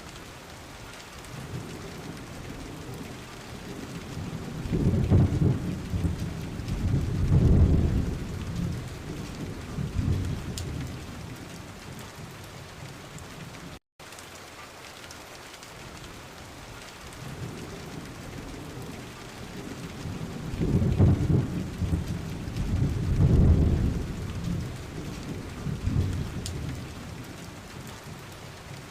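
Thunderstorm: steady rain with rolling thunder, two long low rumbles, one about five seconds in and another about twenty seconds in, each lasting several seconds.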